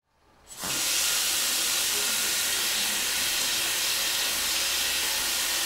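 Water running from a tap onto hands being washed in a basin: a steady hiss that starts about half a second in.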